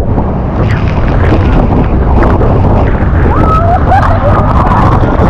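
A loud, steady rush of a tour speedboat near a waterfall, with wind buffeting the microphone. Voices cry out over it from about three seconds in.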